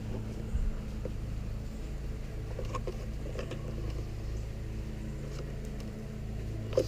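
Steady low mechanical hum with a few faint, light clicks and taps scattered through it.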